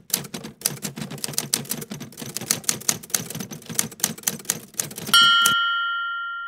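Typewriter sound effect: rapid, irregular key clacks for about five seconds, ending in a single bell ding that rings on and slowly fades.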